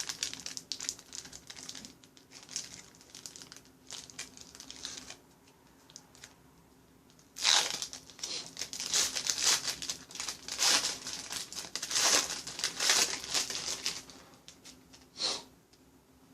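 Plastic wrapping on a trading card hobby box being torn and crinkled, in two stretches of dense crackling with a lull between them and a short last crinkle near the end.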